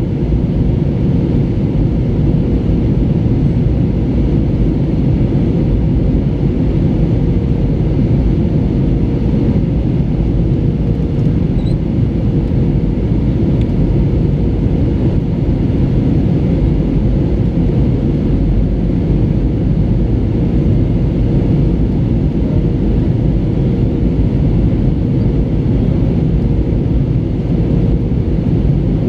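Steady cabin noise inside an Airbus A320 in flight: a low, even rumble of engines and airflow with a steady hum running through it.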